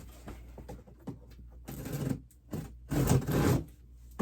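Large cardboard shipping box being shifted and pulled at by hand, giving several rough scraping and rustling bursts in the second half and a sharp knock at the end.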